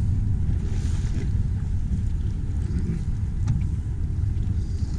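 Steady low rumble of wind buffeting the microphone on an open boat, with a faint click about three and a half seconds in as the bow-mounted trolling motor is being lowered.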